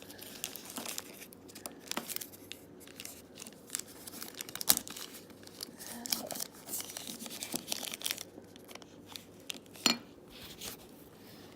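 Pin packaging being crinkled and torn open by hand: a run of short, sharp crackles, with two louder ones about five seconds in and near ten seconds.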